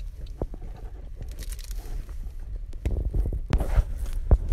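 Crackling, rustling handling noise with scattered clicks. About three seconds in it gives way to a louder low rumble and sharp knocks on the microphone.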